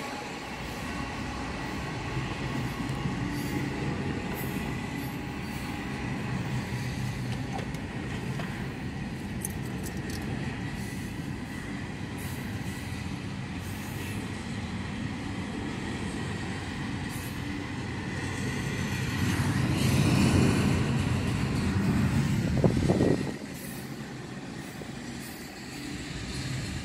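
CSX double-stack intermodal freight train rolling through a grade crossing: a steady rumble and rattle of the container cars on the rails, heard from inside a car. The rumble swells to its loudest and then drops off abruptly a few seconds before the end.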